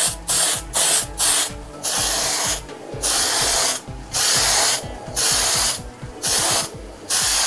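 Aerosol spray can of primer surfacer hissing in about ten short bursts, quick ones at first and then longer passes of about half a second each, as a coat of primer goes on.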